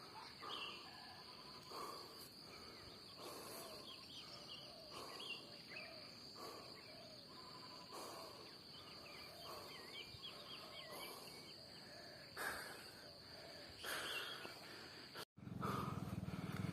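Faint outdoor ambience: a steady high-pitched insect drone with scattered small bird chirps and soft intermittent rustles. It cuts off suddenly near the end and gives way to a low steady hum.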